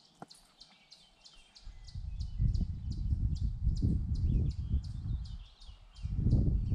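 Wind buffeting the microphone in uneven gusts, starting about a second and a half in and strongest near the end. Under it, short high chirps repeat steadily about three times a second.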